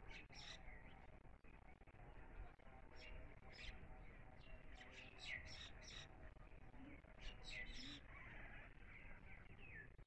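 Bimaculated lark calling faintly: runs of short, high chirps in quick clusters, many sliding down in pitch.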